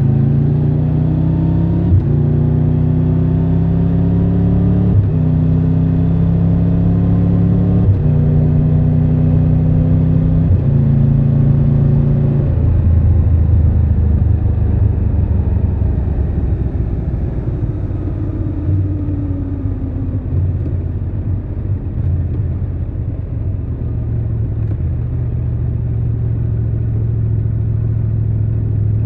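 Triumph Tiger 1200 Rally Pro's inline three-cylinder engine pulling up through the gears, its note rising and dropping back at each upshift about every two to three seconds, then running at a steadier, lower speed for the rest of the time.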